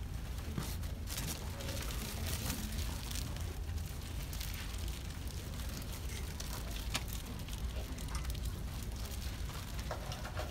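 Low rumbling handling noise from a handheld camera being moved, with scattered crackles and rustles over faint room ambience.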